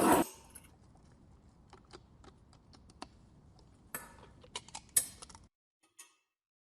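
A loud rushing noise cuts off just after the start, followed by scattered light metallic clicks and taps of small parts or tools being handled, with two short scrapes near the end before it goes silent.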